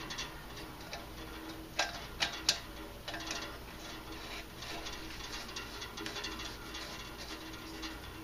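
Light metallic clicks and ticks of a Coleman 220 lantern's pump assembly being threaded by hand into the fuel tank, with three sharper clicks about two seconds in.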